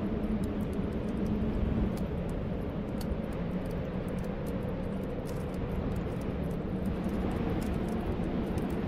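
Steady whistling snowstorm wind with a low, held drone, and faint scattered crackles of a wood fire.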